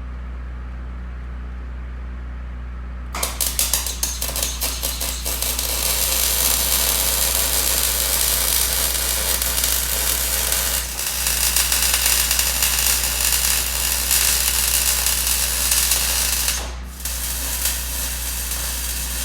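Welding arc crackling steadily as the spliced frame rails are welded, laid down in short stop-start runs to limit heat input. The arc strikes about three seconds in and breaks off briefly about eleven and seventeen seconds in.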